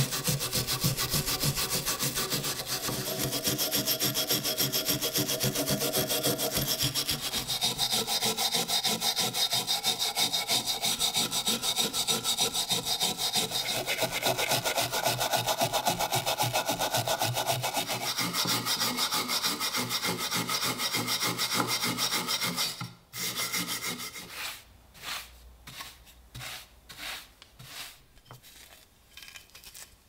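Hand steel wire brush scrubbing heavy rust off an old padlock in rapid back-and-forth strokes. The brushing stops suddenly about three quarters of the way through, followed by a few light scattered knocks and clinks as the padlock is handled.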